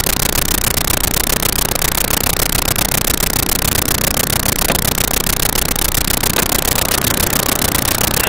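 Loud, harsh, steady hiss that fills every pitch, like heavy static, with a fast even crackle running through it and no let-up.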